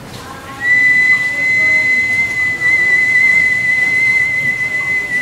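A man lip-whistling one long, high, steady note with a slight waver, starting about half a second in.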